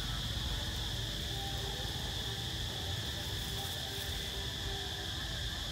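Steady, high-pitched drone of an insect chorus in the forest, unbroken throughout, with a low rumble underneath.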